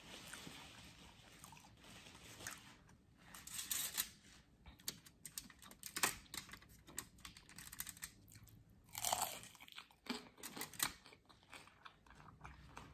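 Close-up crunching and chewing of crispy fried corn tortilla, as in a crunchy taco shell or tortilla chips. The crunches come in irregular clusters, starting about two or three seconds in, with the loudest bites near the middle.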